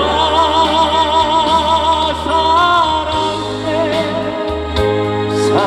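Male singer holding a long note with wide vibrato over a ballad backing track with steady bass notes, sliding into a new phrase near the end.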